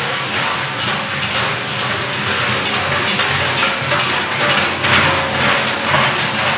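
Many large cowbells worn by a passing troop of Krampus figures clanging together in a continuous, dense jangle.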